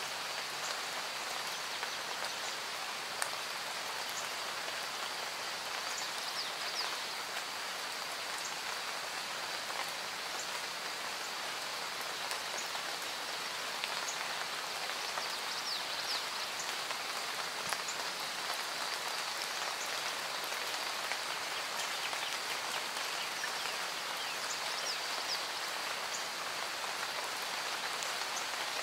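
Steady rainfall, a dense even patter, from a rain ambience track. A few faint, short high chirps come through now and then.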